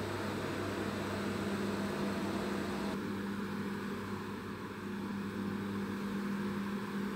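Steady low hum under an even hiss, with no distinct events; the tone of the hiss changes slightly about three seconds in. Room tone.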